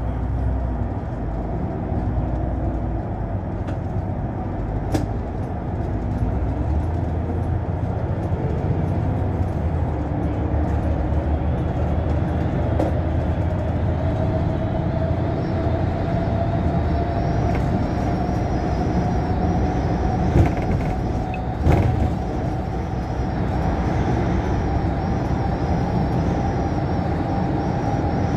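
Articulated city bus driving at speed, heard from the driver's cab: steady engine and road noise with a faint whine that rises slowly in pitch. Two short knocks a second and a half apart come about three-quarters of the way through.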